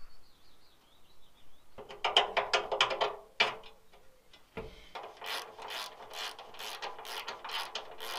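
Hand ratchet wrench clicking as a leaf spring mounting bolt is turned. A quick flurry of clicks comes about two seconds in, then one dull knock, then steady strokes of about three clicks a second from about five seconds in.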